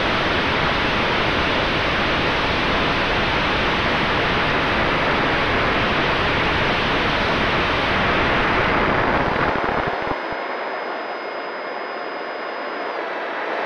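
Steady wind rush of airflow over the onboard camera's microphone on a fast electric RC plane, the Multiplex FunJet Ultra 2, in flight. About ten seconds in the rush softens and its low rumble drops away, letting a thin, steady, high whine of the electric motor through, before the rush swells again near the end.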